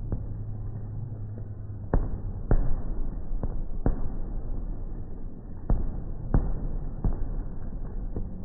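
Fireworks going off: a string of sharp bangs at irregular intervals, some with a short rumbling tail. The strongest come about two seconds in and just before four seconds.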